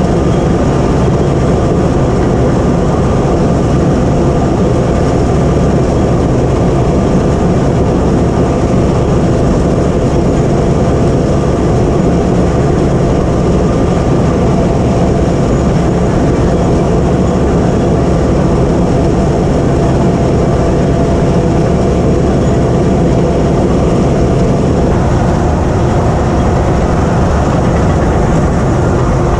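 Cat D8K crawler bulldozer's diesel engine running steadily under load, with the rattle of its steel tracks, loud and unbroken; the sound changes slightly near the end.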